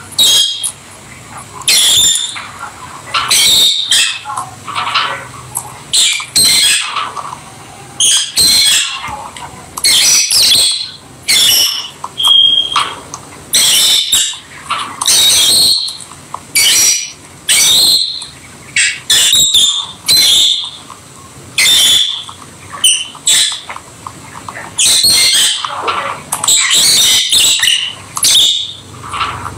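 Peach-faced lovebirds calling: loud, shrill, short chirps and squawks, repeating about once a second.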